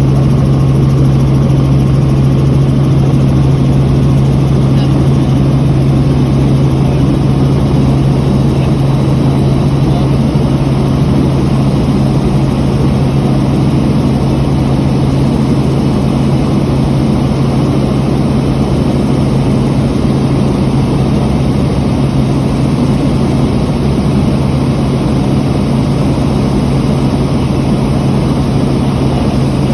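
Helicopter in flight: a loud, steady drone of engine and rotors with a strong low hum that does not change.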